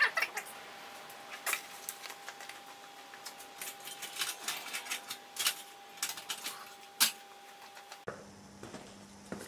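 Irregular metallic clicks and light knocks of hand tools and parts being handled under a car during an oil-drain-plug removal, with one sharper knock about seven seconds in, over a faint steady hum that cuts off shortly after.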